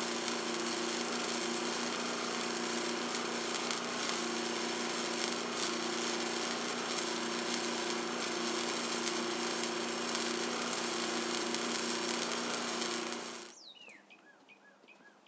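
Wire-feed welding arc crackling and sizzling steadily on sheet steel, with a steady hum under it, for about thirteen seconds, then cutting off sharply into near quiet.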